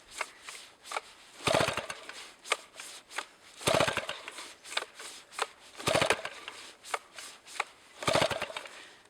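Jobu Tiger 93 cc chainsaw being pull-started with its steel-wire starter cord: four pulls about two seconds apart, each a short burst of rapid cranking ticks, with the engine not catching. The owner puts the hard restart down to the carburetor and excess gasoline.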